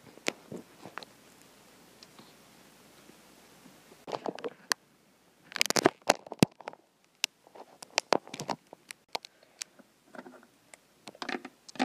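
Small plastic Littlest Pet Shop toy figures being handled and set in place: scattered sharp clicks, taps and rustles, a few at first and many from about four seconds in.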